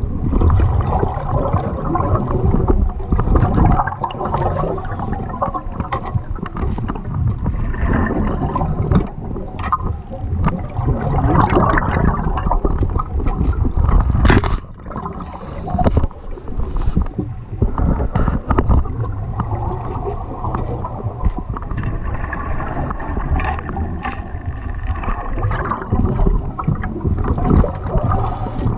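Underwater bubbling and gurgling from a diver's exhaled air, with many knocks and scrapes of diving gear against the camera housing.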